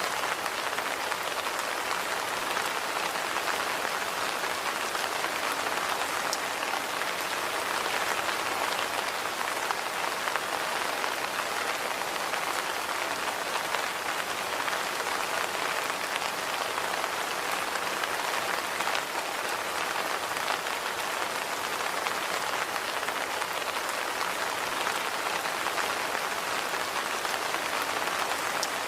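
Steady rain falling on hard surfaces, an even hiss dotted with fine drop patter.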